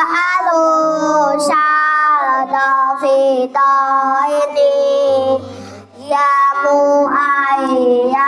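A boy singing a sholawat (Islamic devotional song in praise of the Prophet) into a microphone, in long drawn-out notes that bend and waver in pitch.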